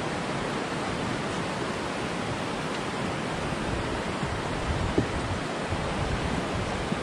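Steady rush of a shallow river running over rocks, with a brief low thump about five seconds in.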